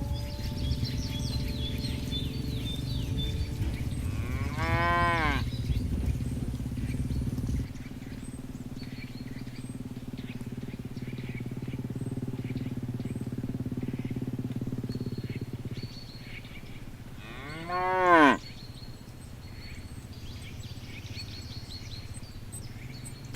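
Cattle mooing twice: one call about five seconds in and a louder one later on, each rising and then falling in pitch.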